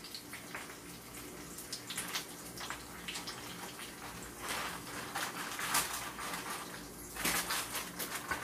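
Breaded pork cutlets frying in oil in a nonstick pan, a steady sizzle with scattered crackles that grow thicker about halfway and near the end.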